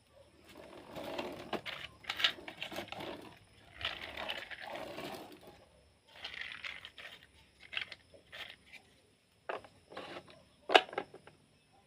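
Plastic toy vehicles being handled and moved: stretches of scraping and rattling, then a few separate clicks and knocks, the sharpest near the end.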